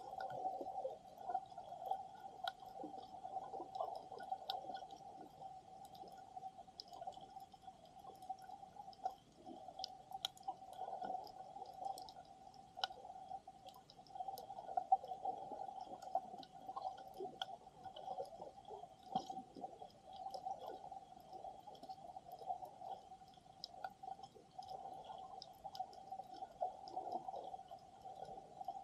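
Underwater sound picked up through a camera's waterproof housing in shallow water: a steady hum with many faint scattered clicks and crackles, and now and then a soft muffled swell of water movement.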